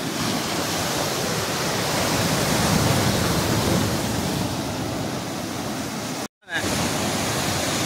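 Sea surf breaking and washing over a rock breakwater, a steady loud rush of water. The sound cuts out completely for a moment about six seconds in.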